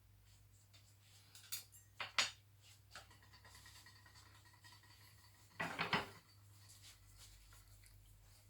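Small tools and parts handled on a workbench during soldering work: a few light clicks and knocks, then a louder clatter about six seconds in, over a steady low electrical hum.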